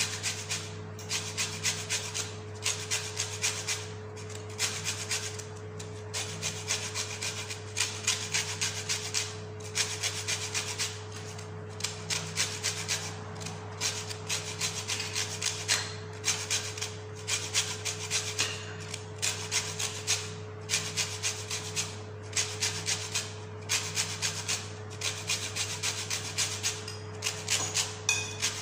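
Lemon rind grated on a flat metal hand grater, rasping stroke after stroke in a steady rhythm as the zest is taken off.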